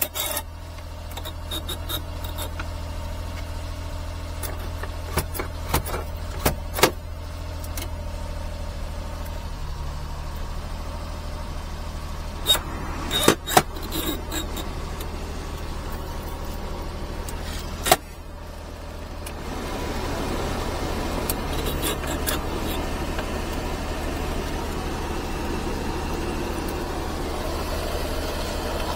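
Small turbocharged 660cc kei-van engine idling with a steady low hum, while dashboard switches click as they are pressed and turned. About twenty seconds in, a cabin blower fan comes on and adds a steady rushing.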